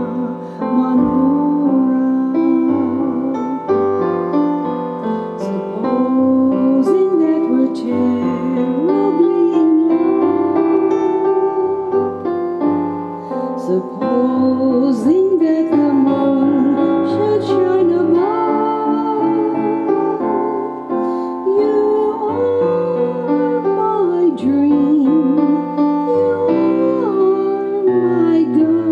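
A woman singing with vibrato, accompanied by a Roland RD-700SX digital stage piano playing held chords.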